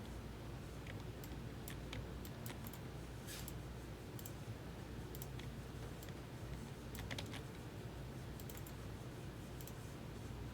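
Faint, irregular clicks and taps of typing on a computer keyboard, over a low steady hum.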